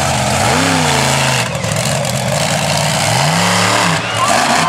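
Samson monster truck's engine revving hard twice, the pitch climbing and falling back each time. Crowd cheering rises over it near the end.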